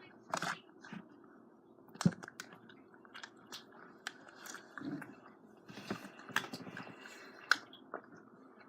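Slime being squeezed and poked by hand, making irregular small clicks, pops and squelches, with sharper pops about two, six and seven and a half seconds in.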